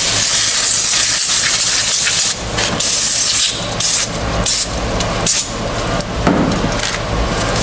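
Aerosol brake cleaner sprayed onto new clutch parts to strip their protective wax coating: one long hiss of about two seconds, then several short sprays.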